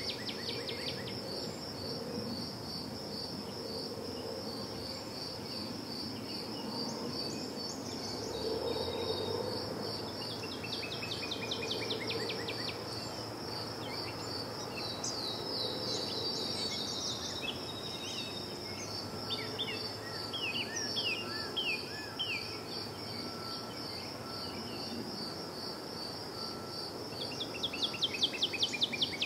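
A cricket chirping steadily, a few high pulses a second, while small birds now and then sing quick falling trills. A low, even background hum lies underneath.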